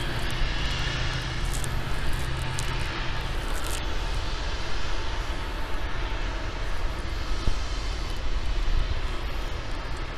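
A steady, even drone of engine noise, with a low hum in it that stops about a third of the way through.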